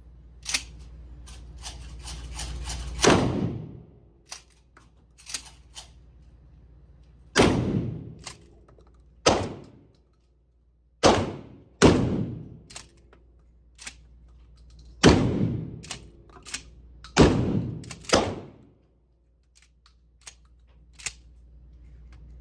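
12-gauge pump-action shotgun firing in an indoor range: about eight loud shots at irregular intervals, each echoing off the walls, with fainter clicks and pops between.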